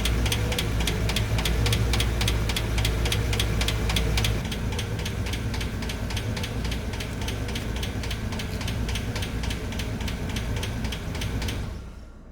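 V8 engine running with a valve cover off, its open valve train ticking rapidly and evenly; the owner suspects something is wrong at one hydraulic lifter. The low running note drops about four seconds in, and the engine stops shortly before the end.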